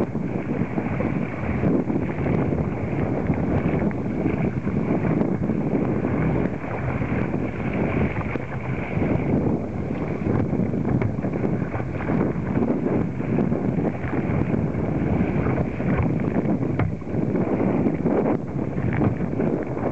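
Strong wind buffeting the microphone over the rush and slap of choppy waves against a sit-on-top kayak's bow as it rides through rough water: a steady, loud rushing noise with brief splashes, more of them near the end.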